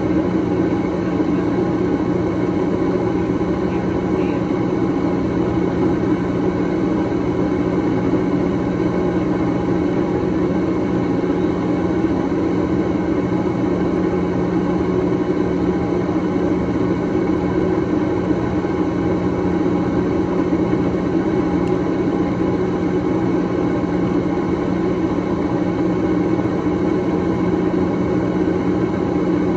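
A steady machine hum with an even rushing noise underneath, unchanging in pitch and level throughout.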